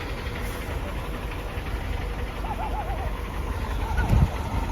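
Cabin noise of a Volkswagen Polo towing a heavily loaded trailer over a rough, icy road: a steady low rumble, with one loud thump about four seconds in. A short warbling tone sounds about halfway through.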